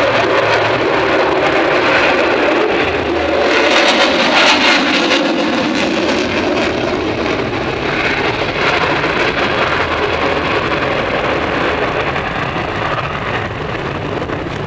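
Jet noise of an F-16 fighter flying a display overhead: a steady rushing roar that swells about four seconds in and then slowly fades.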